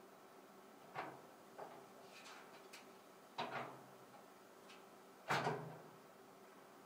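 Metal clunks and knocks from a server rack door being handled and fitted: a handful of separate knocks with small ticks between, the loudest a little after five seconds in.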